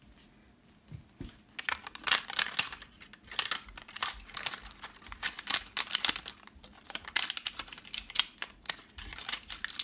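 Scissors snipping repeatedly through the thin plastic magnetic disk of a 3.5-inch floppy disk, with crisp cuts and crinkling of the film. It begins faintly about a second in and becomes a dense, continuous run of snips.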